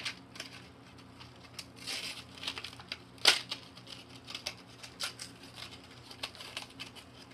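Keychain packaging being handled and opened: crinkling and tearing with scattered small clicks, one sharper click about three seconds in.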